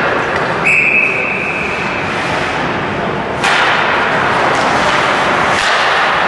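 A referee's whistle blows one steady blast starting about half a second in and lasting about a second and a half. About three and a half seconds in comes a sharp crack, followed by a few seconds of louder ice-rink noise.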